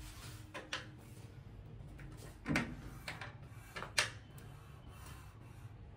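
A few scattered knocks and clicks over a low steady hum; the loudest come about two and a half seconds in and again at four seconds.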